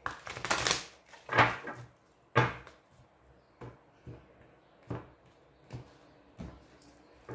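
A deck of tarot cards being shuffled by hand, a rustling flutter of cards for about a second, then two sharper slaps and a run of about six lighter taps as the deck is cut and the piles are set down on a cloth-covered table.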